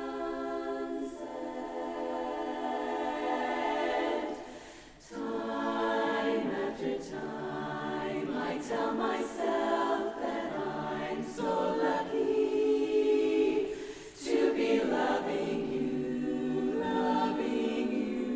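Barbershop chorus singing a cappella in close harmony: held chords, with short breaks at phrase ends about five and fourteen seconds in.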